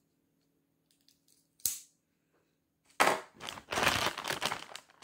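A single sharp click about a second and a half in, then loud crinkling of a thin clear plastic bag from about three seconds on as a hand rummages inside it.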